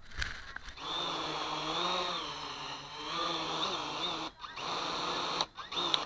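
XK X350 quadcopter's electric motors and props spinning up on the ground with a steady whine that wavers slightly in pitch. The whine drops out briefly about two-thirds of the way in and stops near the end, with a few clicks before it starts.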